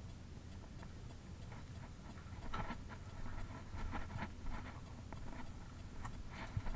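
Footsteps crunching irregularly on a gritty floor, starting a couple of seconds in, over a steady low rumble.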